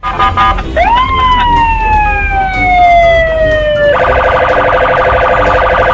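Police car siren: a wail that sweeps up about a second in and then slides slowly down, then switches near the end to a fast pulsing warble, over a steady low rumble.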